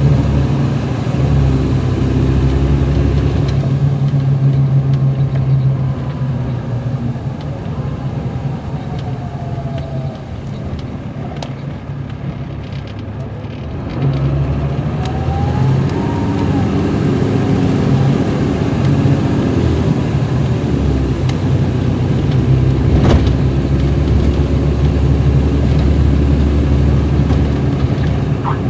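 Caterpillar C13 diesel engine of an MCI D4500CL coach heard from inside the bus, pulling steadily under load. It eases off for several seconds with a faint falling whine, then picks up again about halfway through with a rising whine and runs strong. A single sharp knock comes near the three-quarter mark.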